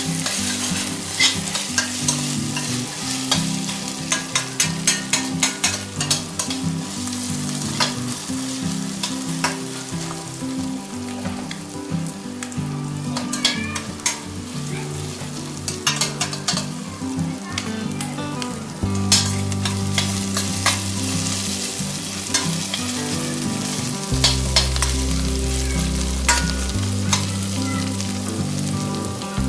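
Onions and ginger-garlic paste sizzling in hot oil in a pan, cooked until the paste loses its raw smell. A spoon scrapes and taps against the pan as it is stirred, in frequent sharp clicks.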